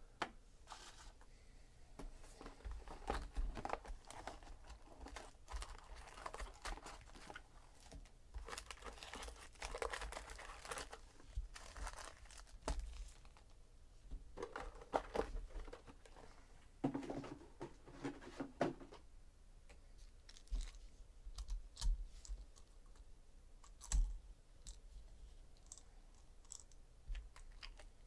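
Hands handling and stacking foil-wrapped 2017 Donruss Optic baseball card packs: crinkling and rustling of the wrappers on and off, with light clicks and taps on the table.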